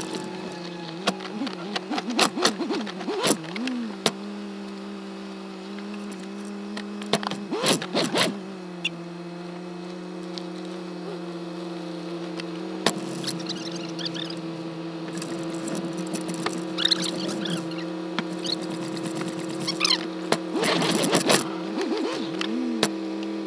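Turbocharged Subaru Forester's flat-four engine running steadily at a low crawl, with irregular clicks, knocks and squeaks from the body and roof basket as the car creeps over rocks; the loudest clusters of knocks come a few seconds in, around eight seconds in, and near the end.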